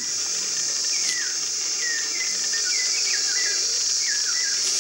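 Steady high-pitched chorus of insects. From about a second in, a bird sings a run of short whistled notes that slide up and down.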